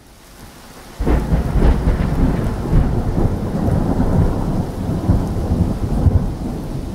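Thunder rolling over steady rain: a faint rain hiss, then about a second in a sudden deep rumble that keeps rolling and slowly eases off.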